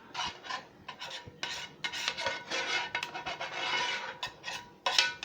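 A utensil scraping thick gravy out of a pan in repeated, uneven strokes, with a sharp metallic clink near the end.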